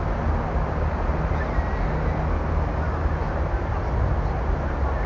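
Steady outdoor din of a large crowd and road traffic, with a low, constant rumble underneath.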